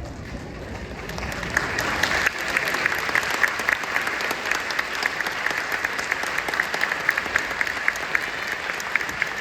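Audience applauding: the clapping swells over the first couple of seconds into steady applause.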